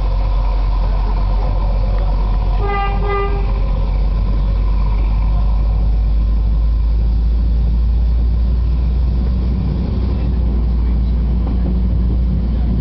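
Works train running with a steady low rumble, and about three seconds in the locomotive's horn sounds two short toots for the level crossing.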